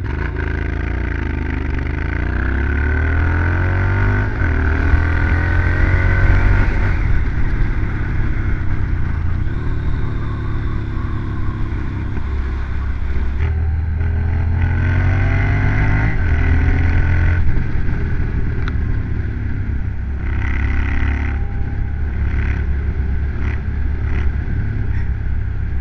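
Motorcycle engine pulling away and accelerating through the gears while being ridden at road speed. Its pitch rises and falls back at each upshift, several times over.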